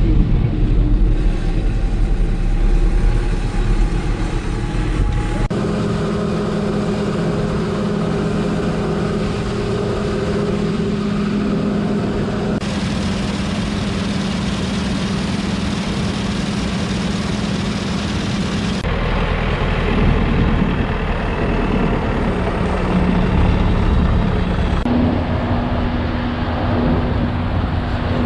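Heavy farm machinery engine running steadily with a low droning hum. The sound changes abruptly about every six seconds, as if cut together from separate recordings.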